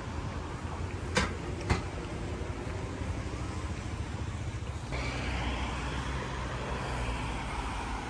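Road traffic on a city street: a steady rumble of passing cars, with a vehicle coming closer and louder from about five seconds in. Two sharp clicks about half a second apart, a little after one second in.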